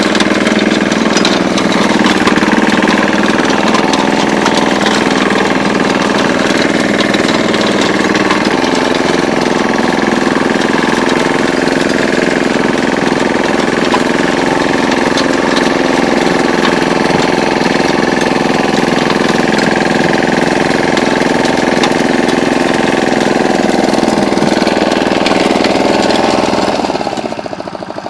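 Single-cylinder Lombardini 510 diesel engine of a Ferrari 72S tracked walk-behind tractor running steadily under load while its rotary tiller works the soil, with a rhythmic clatter. The engine note shifts about eight seconds in, and the sound falls away near the end.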